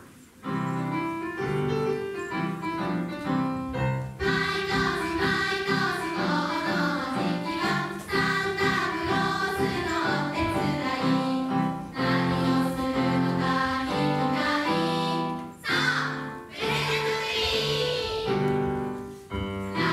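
A song from a stage play, with a group of voices singing to music, starting about half a second in.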